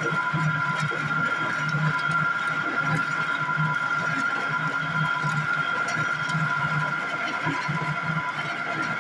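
Coconut oil expeller press running while pressing coconut, a steady whine over a regular low throb, working properly after adjustment.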